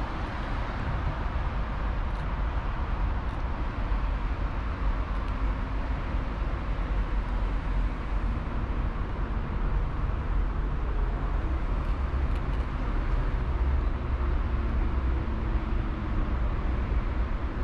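Steady background road-traffic rumble: a continuous low drone with a hiss over it, holding an even level throughout.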